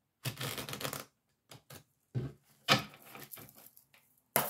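A deck of oracle cards being shuffled by hand: two runs of rapid papery card noise, each about a second long, with a few short flicks between them and a sharp one near the end.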